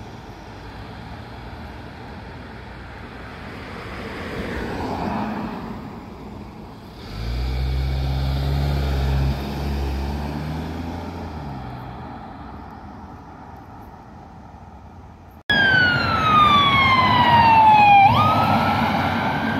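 A police Volvo V90 estate approaches and pulls away with a deep engine rumble that swells for a few seconds and then fades. Then an ambulance siren wails loudly, one long tone sliding down in pitch and jumping back up near the end.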